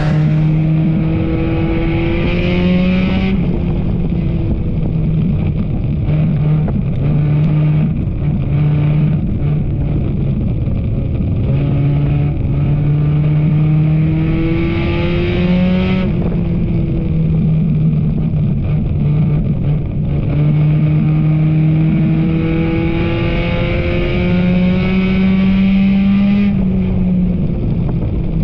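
Enduro race car engine running hard under load. Its pitch climbs slowly and then drops sharply about three seconds in, again about halfway through after a long climb, and again near the end.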